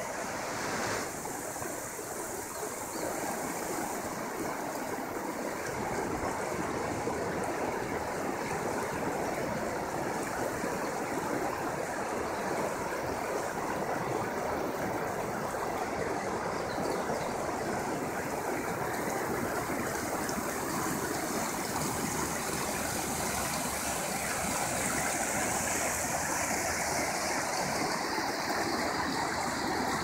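River water rushing steadily over a small waterfall and shallow rock-ledge rapids.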